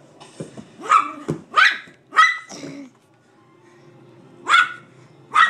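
A dog barking excitedly in his play: four barks in quick succession in the first three seconds, then two more near the end.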